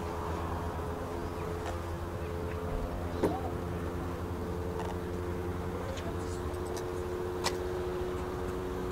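Distant aircraft engines droning steadily: a low rumble with a steady hum, broken only by a few faint clicks.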